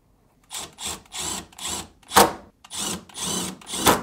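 Cordless drill/driver driving a screw into a refrigerator door's metal center hinge in short bursts, about two a second, with a rasping sound. Two sharper, louder bursts come about two seconds in and near the end.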